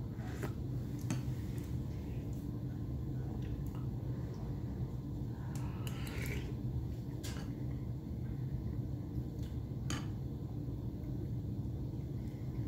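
A metal spoon clinking against a ceramic soup bowl several times as soup is scooped and eaten, with a short soft slurp from the spoon around the middle. A steady low hum lies under it all.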